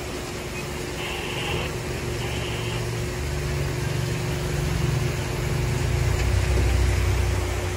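Low engine rumble that swells over several seconds and eases off near the end, with a faint steady hum underneath.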